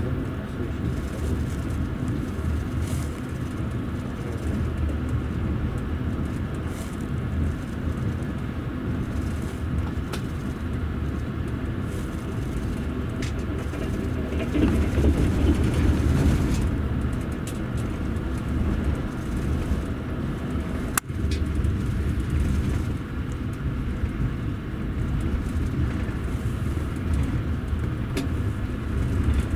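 Double-deck passenger train carriage under way, heard from inside: a steady low rumble of wheels on the rails with faint scattered clicks. The rumble swells louder for a few seconds about halfway through, and there is a single sharp click about two-thirds of the way in.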